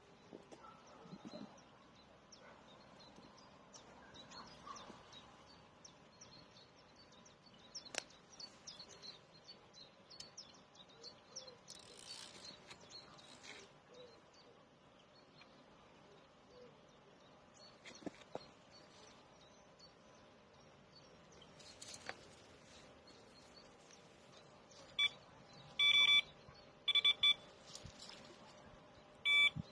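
Faint birds chirping over quiet outdoor background, then a handful of short electronic beeps in the last five seconds from the bait boat's remote control.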